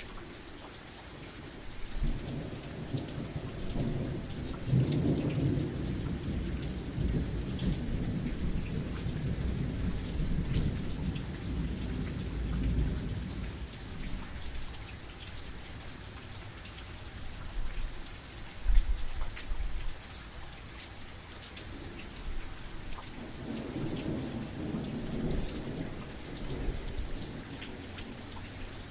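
Steady heavy rain falling, with rolling thunder: a long low rumble builds about two seconds in and dies away some twelve seconds later, and a shorter roll comes near the end.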